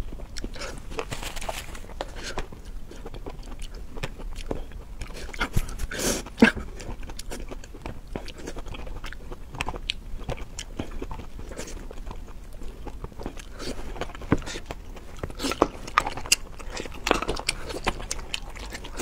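Close-miked eating of seafood: irregular biting and chewing with crunchy clicks, the loudest bites about six seconds in.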